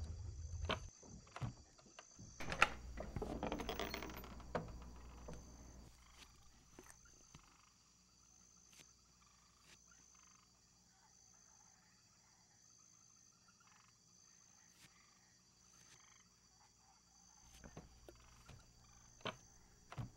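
Quiet swamp ambience of frogs and insects, with a faint high chirp repeating about once a second. A low rumble and a few knocks fill the first six seconds, then fade.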